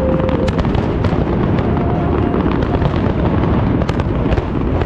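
Large aerial fireworks display: a continuous rumble of booming shells with many sharp crackling pops. A steady whistling tone cuts off about half a second in.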